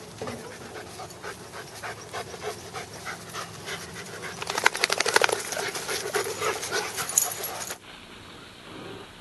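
Dogs panting in quick, even breaths, loudest about halfway through, then dropping off abruptly near the end.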